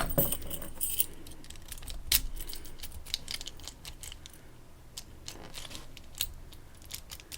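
Keys jangling, then scattered small metallic clicks and taps as a key is worked in a dimple lock that may have lost a pin. There is a sharper click just after the start and another about two seconds in.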